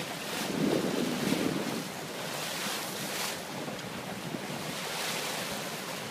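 Wind buffeting the microphone over the rush of a moving boat's churning wake, rising and falling in gusts.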